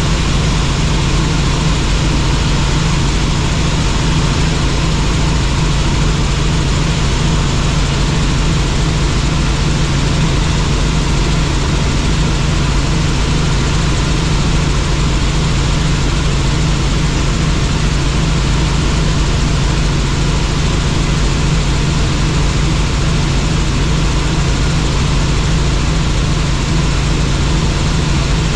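Helicopter in flight: a loud, steady drone that stays even in pitch and level throughout.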